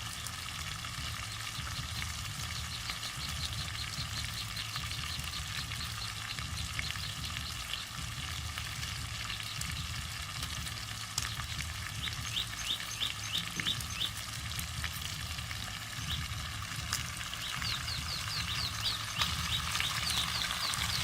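Pork ribs frying in hot oil: a steady sizzle. Runs of short, high chirps repeat twice over it, near the middle and again near the end.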